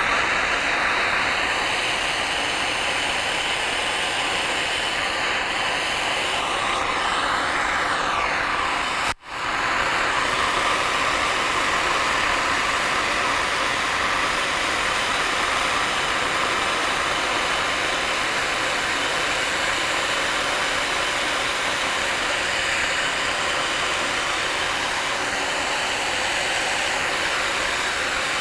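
Hand-held gas torch burning with a steady hiss, its flame heating a pump shaft sleeve so the sleeve can be driven off the shaft. The sound cuts out for a split second about nine seconds in.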